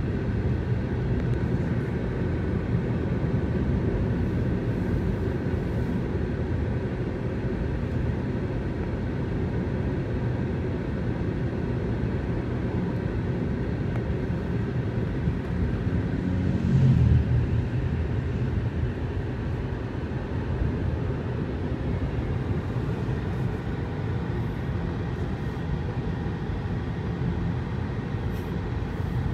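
Steady road and engine rumble of a moving car, heard from inside the cabin, with a brief louder swell about 17 seconds in.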